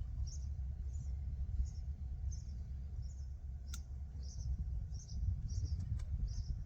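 A bird gives a short high chirp over and over, about three every two seconds, over a steady low outdoor rumble. Two sharp clicks come near the middle and near the end.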